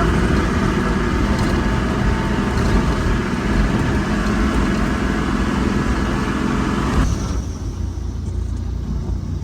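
A car driving, heard from inside the cabin: the engine runs steadily under dense road and tyre noise. About seven seconds in, the higher road noise drops away and the sound gets a little quieter.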